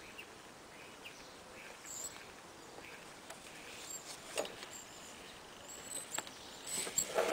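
Faint outdoor background with scattered short, high bird chirps. A click about four seconds in, then a run of rustles and clicks near the end as a stitched leather belt is handled against the idle sewing machine.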